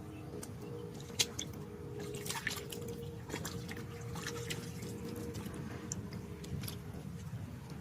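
Ditch water splashing and dripping in short, irregular bursts, over a steady low hum.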